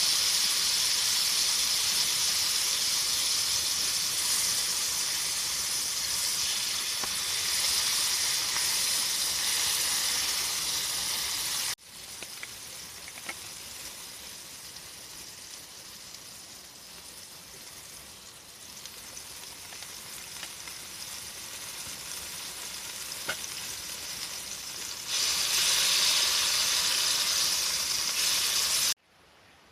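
Steady sizzling hiss from something cooking on a hot wood stove. About 12 seconds in it cuts suddenly to a quieter hiss with faint scattered crackles, and it jumps back to loud sizzling near the end before stopping abruptly.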